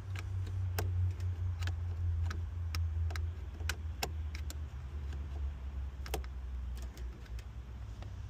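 Small 7/32 wrench clicking against a hex-head screw as it is worked out of an ABS plastic housing: scattered, irregular sharp clicks over a steady low rumble.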